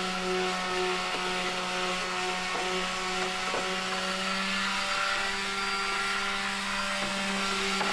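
Steady hum of a power tool's motor running in the background, with a few light knocks as a door-card board is handled on a wooden table.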